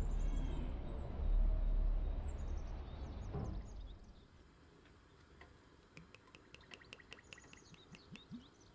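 Small birds chirping over a low outdoor rumble that drops away about four seconds in. After that the chirps go on more quietly with a few light clicks, and near the end comes a short soft pour as oil goes into an empty wok.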